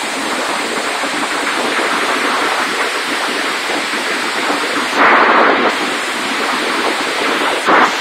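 Heavy rain mixed with hail pelting the ground and surrounding surfaces: a dense, steady hiss. It surges louder for about half a second roughly five seconds in, and briefly again near the end.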